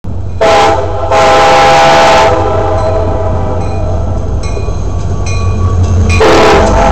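Air horn of the approaching CSX SD70MAC lead locomotive: a short blast, then a long blast, and another beginning near the end. Under the horn runs the low rumble of the passing freight trains, with faint clicking of wheels over rail joints.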